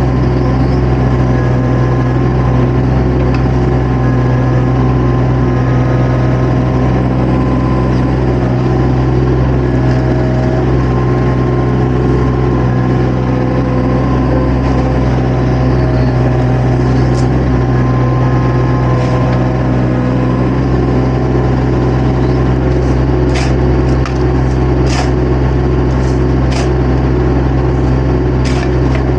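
Engine of a compact construction machine running steadily, heard close up from the operator's seat. Several short, sharp clicks or knocks come over it in the last few seconds.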